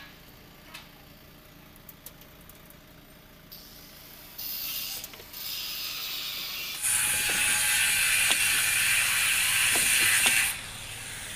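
A loud, steady hiss of escaping pressure that starts abruptly about seven seconds in and cuts off sharply near the end. It follows quieter, patchy hissing and a few light metallic clicks.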